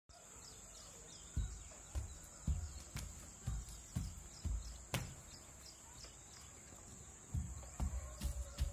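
Bare feet landing on a concrete roof in hopscotch hops: a row of dull thuds about two a second, a pause, then a quicker run of landings near the end. Faint bird chirps and a steady high-pitched tone sit behind.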